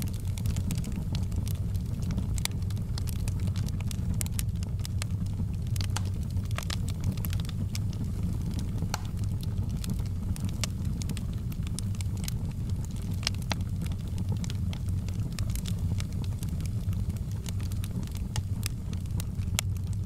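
Wood fire burning in a fireplace: a steady low rumble of the flames under frequent, irregular sharp crackles and pops from the burning logs.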